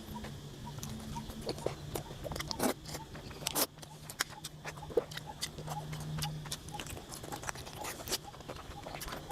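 Close-up eating sounds: irregular wet mouth smacks and crisp clicks of chewing, over a steady low hum that stops about two-thirds of the way through.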